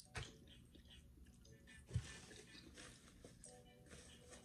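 Faint chewing of seafood-boil food, with two sharp knocks about a fifth of a second in and about two seconds in.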